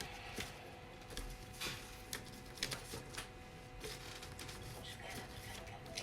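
Scattered light clicks and taps of small objects being handled, with a sharper click about halfway through, over a faint steady hum.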